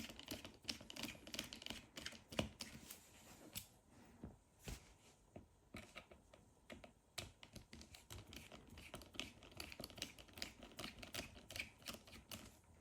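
Faint, irregular small clicks and scrapes of a T5 Torx screwdriver working the case screws out of a Google Nest Doorbell. The clicking is thickest at the start and again in the last few seconds.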